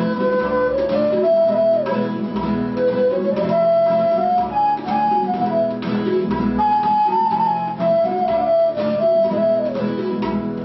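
Live acoustic trio: a bansuri flute plays a melody that rises and falls and slides between notes, over an acoustic guitar and tabla drums keeping a steady rhythm.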